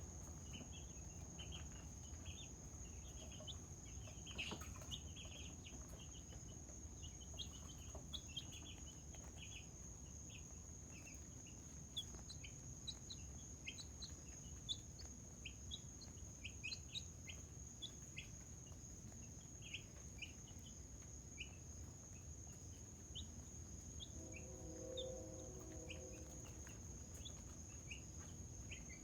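Chickens making soft contented sounds: many short, high chirps scattered throughout, with a brief lower cluck about twenty-five seconds in. The sounds are faint.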